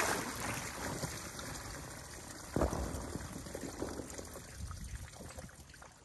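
Sump pump discharge water gushing out of a pop-up drain emitter and a small outlet pipe onto a concrete pad. It splashes loudly at first, then dies away to a trickle, with a second shorter surge about two and a half seconds in. The 160-foot uphill discharge line is backed up with water, so the flow comes in surges rather than steadily.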